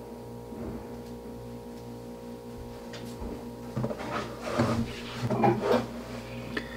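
A low steady electrical hum, then about four seconds in a run of knocks and rustling as a person moves up close to the microphone and settles in front of it.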